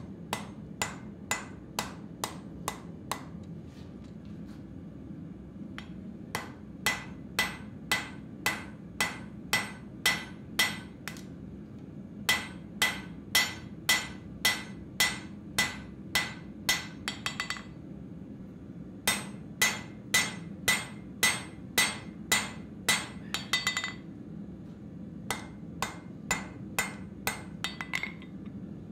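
Hand hammer striking a red-hot pattern-welded (Damascus) knife blade on a steel anvil to shape it. The blows come about two a second in runs of several seconds, each ringing, and some runs end in a quick rattle of light taps. A steady low hum runs underneath.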